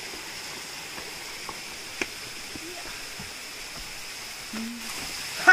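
Footsteps on loose boulders, a few light knocks and scrapes, over a steady quiet background hiss.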